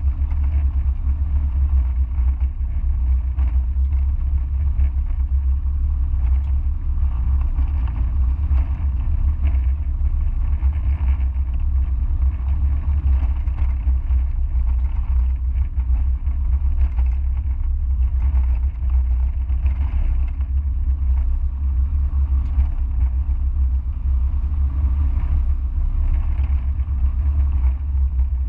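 Onboard sound of a Mazda MX-5 being driven: a steady low rumble of engine and road noise, with no marked revving.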